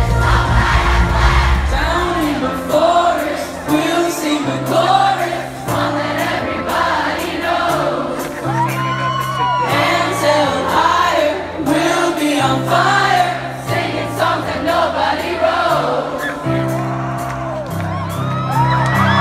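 Live band music, recorded from the audience: drums, a bass line that changes note about every second, and singing with the crowd's voices mixed in. Cheering and whoops rise near the end.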